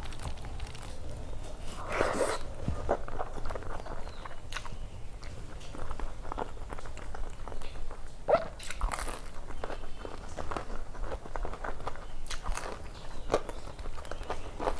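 Close-up mouth sounds of a person eating: chewing, smacking and small crunches, with a few louder crunchy bites about two seconds in, around eight and a half seconds in and near the end.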